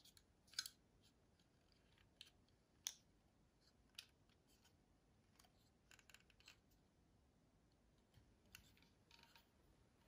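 Faint, scattered clicks and ticks of fingers handling a die-cast metal model aircraft over a quiet room, the two sharpest about half a second and about three seconds in.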